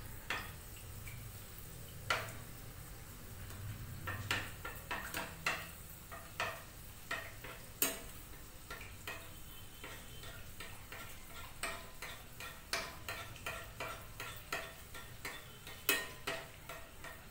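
Spoon tapping and clinking against the rim of a kadhai as hot oil is splashed over an anarsa frying in it, over a faint sizzle of frying oil. The taps come irregularly, one or two a second, and grow quicker toward the end.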